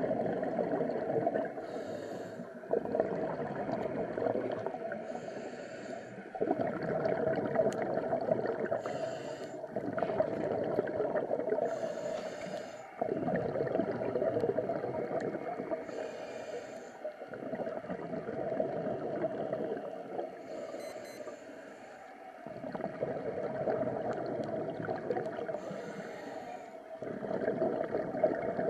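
Scuba diver breathing through a regulator underwater: long rushing breaths with bubbling and gurgling, one every three to five seconds, with short hisses between them.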